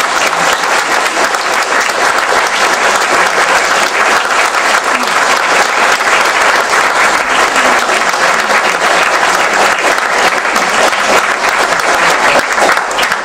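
Audience applauding, many hands clapping at once in a loud, steady, sustained round of applause.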